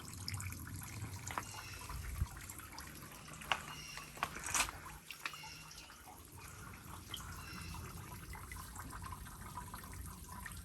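Water trickling and dripping over rock at a small creek waterfall running low, with scattered sharp drips, a few louder ones around the middle.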